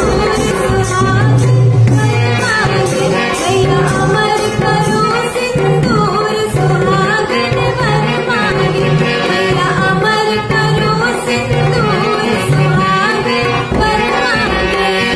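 A woman singing a Bundeli folk song over a steady hand-drum accompaniment with a melodic instrument, the vocal line wavering and ornamented.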